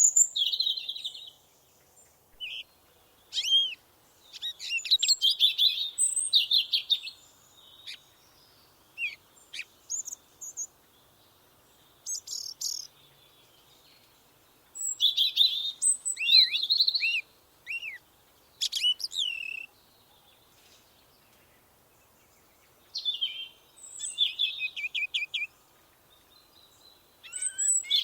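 A songbird singing in short bursts of rapid chirps and whistles, several phrases separated by pauses of a few seconds.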